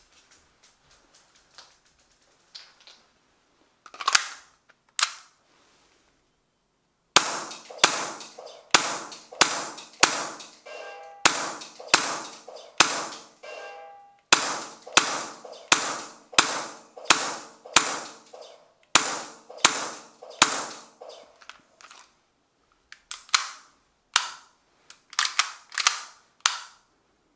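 Tokyo Marui Glock 17 Gen5 MOS gas blowback airsoft pistol firing shot after shot, each a sharp crack as the slide cycles. Two single shots come first, then long strings at about two shots a second, with a few irregular shots near the end.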